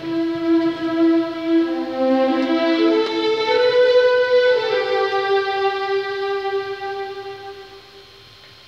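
Background music: a slow melody of long held notes, each a second or two, stepping between pitches and fading out near the end.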